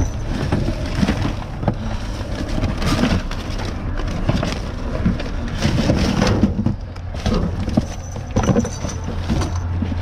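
Gloved hands rummaging through a dumpster: plastic bags, tissue paper and cardboard rustling and crinkling, with frequent knocks of items shifting, over a steady low hum.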